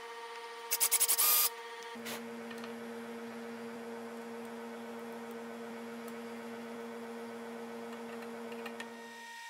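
A steady electrical hum, with a brief, loud, rapidly pulsing mechanical whir lasting under a second about a second in; a lower hum tone joins about two seconds in and drops out near the end.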